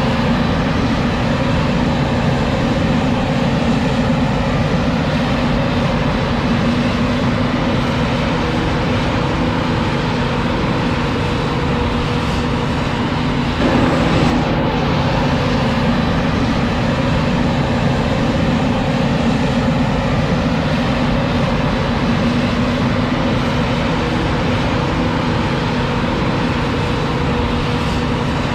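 Self-propelled forage harvester chopping maize, its engine and cutting gear running in a steady, even drone with a held low hum.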